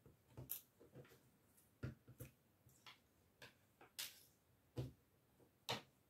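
Faint, irregular small clicks and rustles of hands handling yarn and a crocheted amigurumi piece while tying off the yarn. About a dozen short ticks come at uneven intervals, the sharpest about two seconds in, at four seconds and just before the end.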